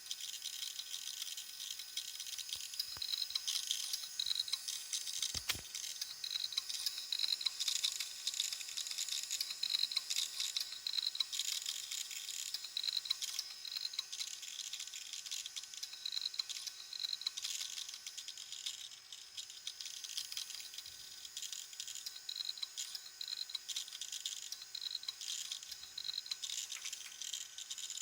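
Failing hard disk drive grinding: a dense, rapid, scratchy clicking ("gari-gari") from the heads and platters, with short repeating high beeps. It is the sign of serious physical damage inside the drive. There is one low knock about five seconds in.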